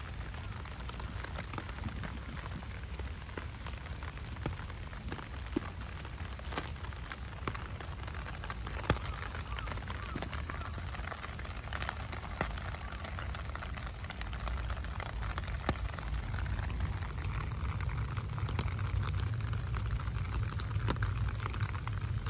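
Steady heavy rain falling, with scattered sharp drop hits close by. A low rumble builds over the last few seconds.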